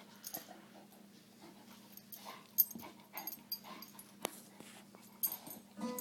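A puppy and a Rottweiler playing: irregular short, breathy dog noises and scuffles, with one sharp knock about two and a half seconds in.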